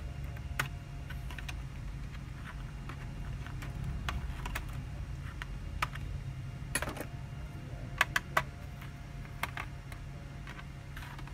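Irregular sharp clicks and light taps of a thin metal tool working against the CMOS coin-cell battery and its plastic holder inside a Dell laptop, the loudest two close together about eight seconds in, over a steady low hum.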